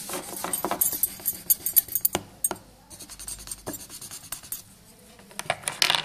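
Quick back-and-forth colouring strokes scratching on paper as an area of the drawing is filled in. After about two seconds the strokes thin out into a few scattered clicks and taps.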